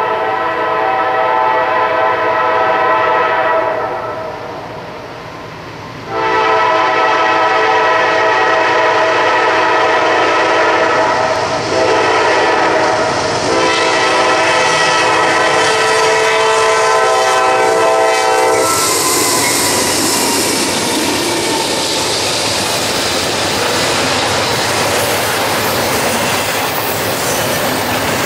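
Horn of a Norfolk Southern GE C40-9W diesel locomotive sounding a chord in the grade-crossing signal: long, long, short, long, with the last blast ending about two-thirds of the way through. Then the locomotives pass close by and the intermodal well cars roll past with steady wheel noise and clickety-clack over the rail joints.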